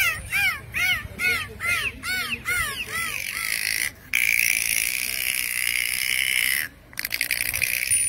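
Bottlenose dolphins calling. First comes a quick series of short rising-and-falling whistles, about two a second. A long, steady, high squeal follows from about four seconds in, and near the end a rapid crackling train of clicks.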